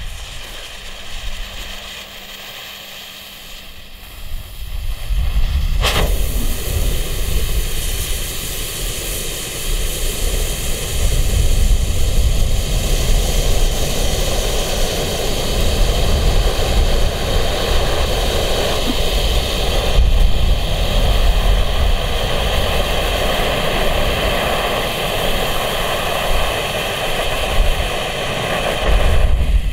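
Violet Bengal fire flare burning: quieter while the fuse burns, then the flare catches about four to five seconds in and burns with a steady hiss, with a low rumble underneath. A single sharp pop about six seconds in.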